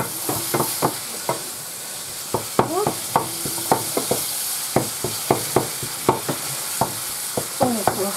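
Ground beef sizzling as it fries in a pan, with a steady hiss, while a utensil stirs it and knocks and scrapes against the pan two or three times a second.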